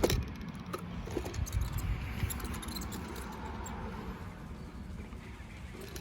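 A sharp click right at the start, then light clicks and rattles of the fuel pump module's plastic parts and hoses being turned over by hand, over a low steady rumble.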